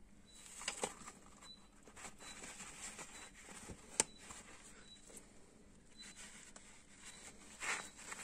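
Faint clicks and soft rustling of a hand-lever grease gun working a lower grease fitting on a CFMoto 625 ATV's suspension while grease is forced into the joint, with one sharp click about four seconds in and a louder rustle near the end.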